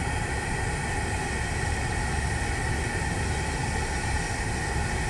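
Propane burner running under a stainless steel pot of maple sap at a rolling boil: a steady low rumble with the bubbling of the sap as it boils down toward syrup at about 220 degrees.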